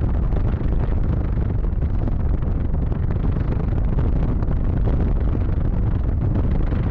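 Wind buffeting the microphone: a loud, steady low rumble with a rough, fluttering texture.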